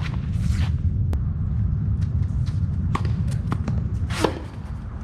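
Tennis rally on court: sharp pops of racket strings hitting the ball and the ball bouncing, the clearest about three seconds in and again just after four seconds, with scuffs of shoes on the court. A steady low rumble runs underneath.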